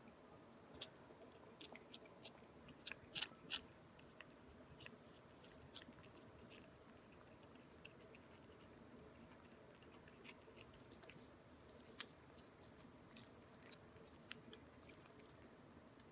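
Ragdoll cat licking a CIAO Churu paste treat from a squeezed tube: faint, irregular wet licking clicks and smacks, with a few louder ones about three seconds in.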